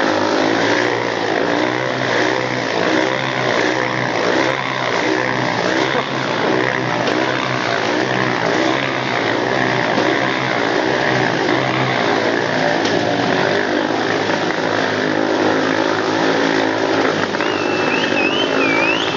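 Several Honda CRF single-cylinder four-stroke dirt-bike engines revving hard and continuously as the bikes circle inside a steel-mesh globe of death, their pitch rising and falling as they loop around.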